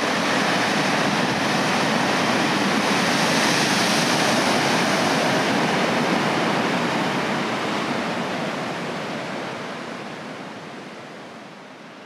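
Breaking ocean waves: a steady rush of surf that fades slowly away over the last five seconds.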